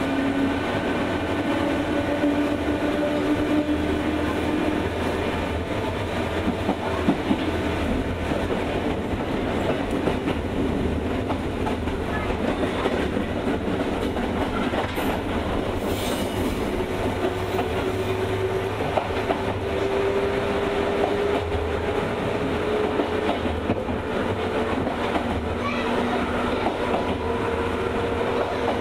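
Onboard running sound in a JR 201-series electric multiple unit motor car. Wheels clatter over the rails under a steady rumble, while the chopper-controlled traction motors and gears whine, the whine rising in pitch through the second half.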